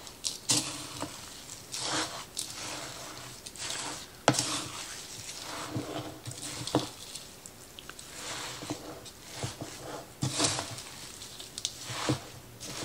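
Wooden spatula stirring ground beef and crushed Ritz crackers in a plastic mixing bowl: irregular scraping, squishing strokes, with a few sharp knocks of the spatula against the bowl.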